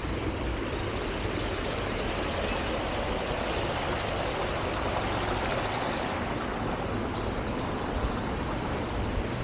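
Steady rushing outdoor noise, with three faint high chirps about seven seconds in.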